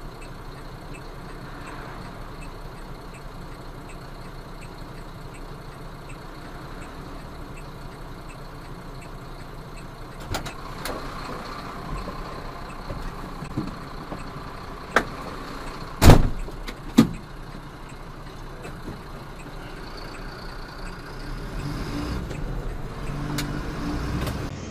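Truck engine running while stopped, heard from inside the cab, with a few sharp knocks about two-thirds of the way through. Near the end the engine works harder as the truck moves off.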